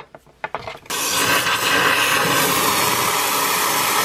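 Red-hot steel screwdriver blade quenched in a cup of oil to harden it, giving a steady sizzling hiss that starts suddenly about a second in.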